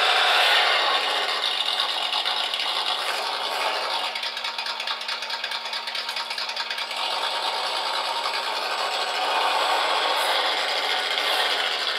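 A PRC QX-4 1/18 mini RC rock crawler crawling under throttle: a continuous, tinny, rattling run from its small geared brushed motor and drivetrain, mixed with the simulated V8 engine note from its onboard sound unit. The sound eases off in the middle and picks up again near the end.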